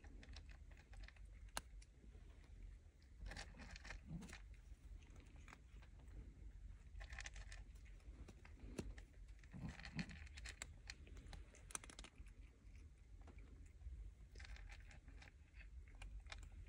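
Faint crackling and rustling in short clusters a few seconds apart as a calico cat works at a cardboard box of loose dark granules, over a low steady rumble.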